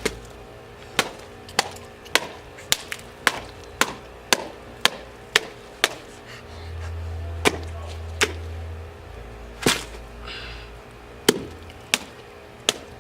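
A metal pipe striking a watermelon again and again: a run of hard blows about twice a second for several seconds, then slower, scattered strikes.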